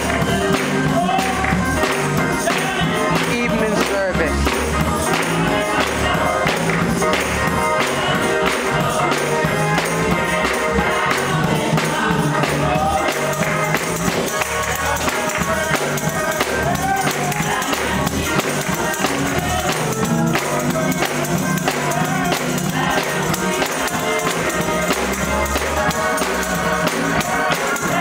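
Gospel devotional music: organ with voices singing and a steady percussive beat.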